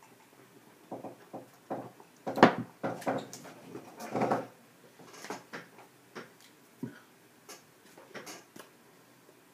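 Scattered knocks, rubs and light clicks from handling close to the microphone, with the loudest knock about two and a half seconds in and a cluster of rubbing about four seconds in.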